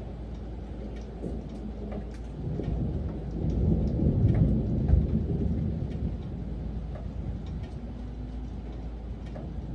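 Steady rain with scattered drop ticks, and a low roll of thunder that swells about a quarter of the way in, peaks around the middle and slowly dies away.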